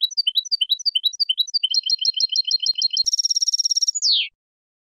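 European goldfinch singing a clean Málaga-style song phrase (copia Málaga): a run of quick rising chirps, then a faster trill, a buzzy rattling trill about three seconds in, and a falling slurred note that ends it.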